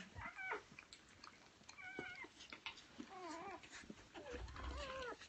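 Newborn golden retriever puppies squeaking and whimpering: about four faint, short, high-pitched cries that bend up and down in pitch, spaced a second or so apart.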